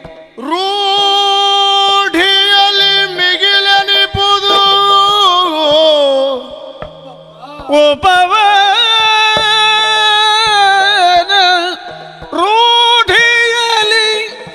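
Yakshagana music: a singer in long, high, ornamented phrases with sliding pitch, broken by short pauses, over a steady drone, with frequent strokes of a hand-played barrel drum (maddale).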